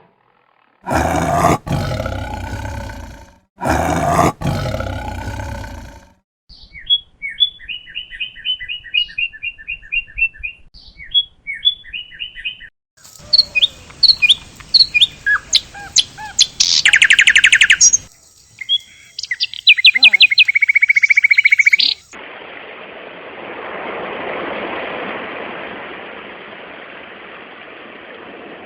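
Two long, loud roaring calls from a large animal in the first six seconds, followed by a run of birds chirping and trilling in quick repeated notes. After that comes a steady rushing noise.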